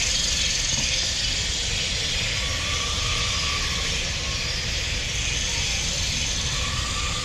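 Steady outdoor ambience: a constant low rumble under an even high hiss, with faint tones that come and go around the middle and near the end.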